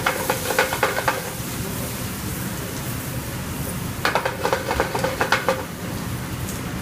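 Stainless sauté pan shaken and tossed on a gas range, two bouts of rapid metal clattering about four seconds apart, over the steady sizzle of food frying in the pan.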